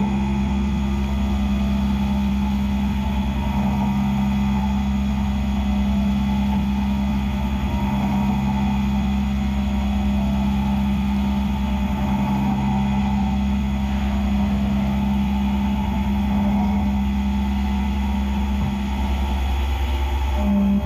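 Skyfire SVM-2 CNC mill cutting aluminum under flood coolant: a steady spindle and cutting hum with the hiss of coolant spray, running evenly throughout.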